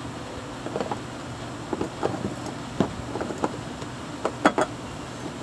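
Irregular clicks and knocks of a white plastic drain fitting being handled and pulled off its pipe at the bottom of a plastic duck pond, with a few sharper knocks about four and a half seconds in.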